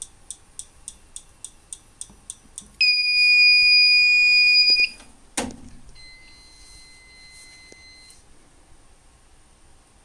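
Fire-Lite MS-9600UDLS fire alarm control panel being reset. A run of quick faint ticks, about five a second, is followed by a steady high beep from the panel's sounder for about two seconds. Then comes a click, and a second, quieter steady beep of about two seconds as the panel restarts.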